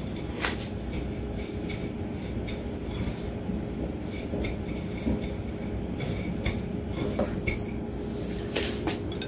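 A hand pressing and rolling a chicken drumstick in breadcrumbs on a plate: scattered light clicks and scrapes against the plate, over a steady low background hum.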